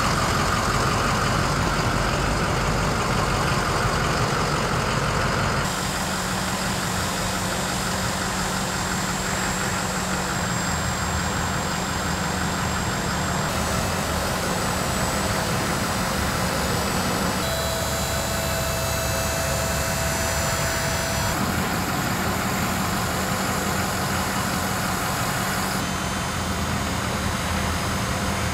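Ford F550 service truck's engine idling steadily; the sound shifts abruptly a few times but keeps the same steady running.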